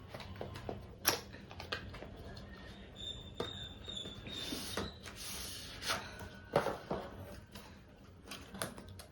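Cardboard packaging of an Apple Watch being handled and opened: scattered taps and clicks, a thin squeak about three seconds in, then a short rustling scrape of card sliding.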